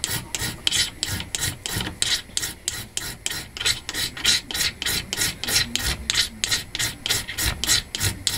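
Striker scraping shavings off a Coleman magnesium fire-starter strip: quick, even rasping strokes, about four to five a second.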